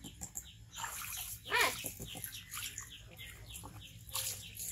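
Repeated short falling chirps, about three a second, with one brief, rising-then-falling animal call about one and a half seconds in.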